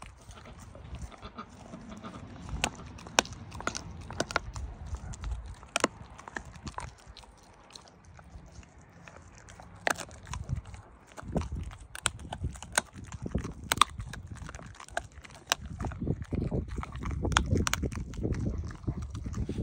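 German Shepherd chewing and gnawing a chunk of raw deer meat, with many sharp crunches and clicks of its teeth scattered throughout.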